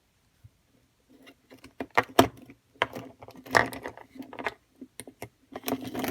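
Crazybaby Air Nano mini drone making a rattling, clicking noise over a low hum, coming and going in irregular spurts: the sound problem it has.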